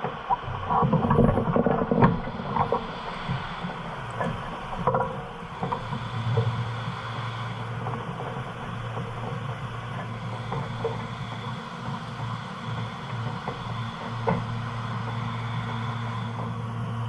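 Harley-Davidson motorcycle engine running on the move, uneven and louder for the first few seconds, then settling into a steady low drone from about six seconds in, with wind noise on the microphone.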